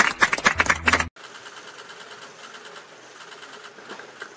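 Several people clapping their hands in a quick, steady rhythm, cut off suddenly about a second in. After that comes fainter, continuous clapping.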